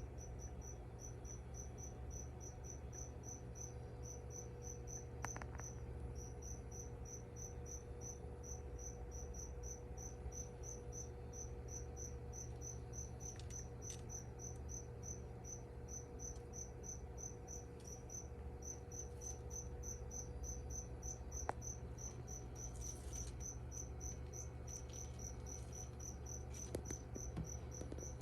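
A cricket chirping, short high chirps repeated quickly and evenly without a break, over a steady low hum.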